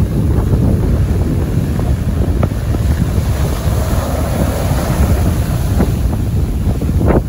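Strong wind buffeting the microphone in a steady low rumble over high sea waves breaking and washing on the beach, with a rush of surf swelling in the middle.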